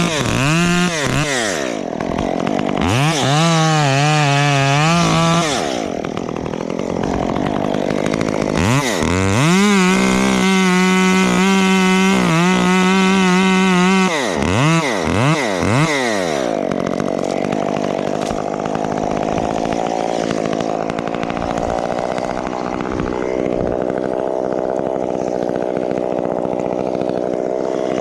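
Gas chainsaw revved up and down several times, held at high speed for about four seconds near the middle, then blipped a few times. After that it gives way to a steadier, lower engine note.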